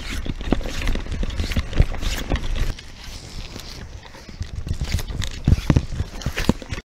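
Loaded Prestige Carp Porter Triporter three-wheel fishing barrow pushed along a rough dirt path: irregular knocks and rattles from the wheels, frame and strapped-on gear, with footsteps and wind rumbling on the microphone. It quietens for a couple of seconds in the middle.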